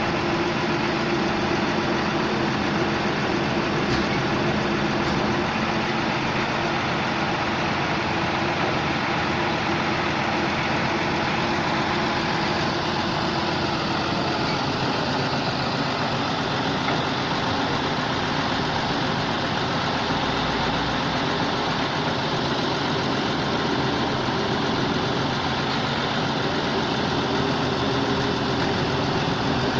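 Diesel engine of a 655 CFM portable air compressor running steadily, with a slight shift in tone about twelve seconds in.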